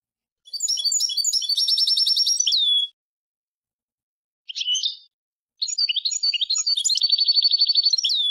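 European goldfinch singing: two phrases of quick, high twittering notes, each running into a fast even trill and ending on a falling note, with a single short call between them.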